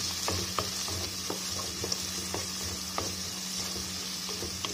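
Tomato, onion and garlic sauté sizzling in oil in a nonstick pot, with a wooden spoon stirring and knocking irregularly against the pot. The tomato paste is being cooked down into the sauce base.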